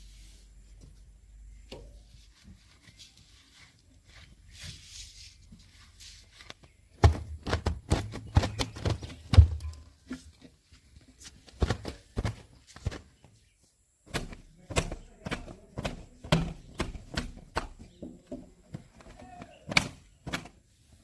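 A series of irregular thuds and knocks, with a low rumble underneath them about seven to ten seconds in.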